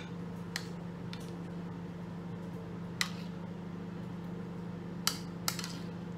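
Microwave oven running with a steady hum, while a spoon clinks lightly about five times against the dish as baked beans are spooned out.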